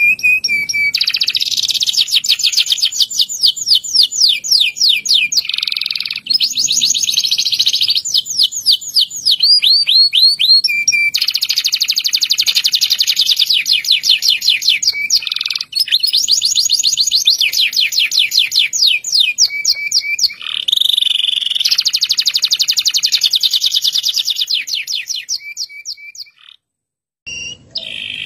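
Local (Indonesian) domestic canary singing loudly and continuously, a long song made of fast rolling trills, each roll a rapid run of repeated notes, with short breaks between phrases. The song stops briefly near the end and then starts again.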